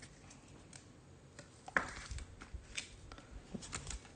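Faint handling of trading cards: scattered light clicks and brief rustles, one slightly louder about halfway through.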